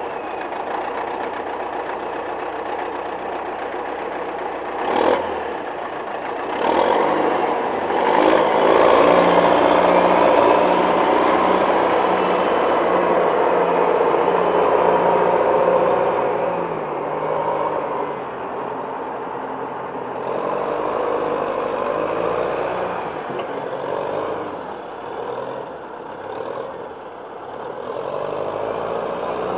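Diesel engine of a 1971 Caterpillar 950 wheel loader running as the loader drives and manoeuvres. The engine revs up and is loudest for several seconds from about seven seconds in, then eases and rises and falls. There is a sharp knock about five seconds in.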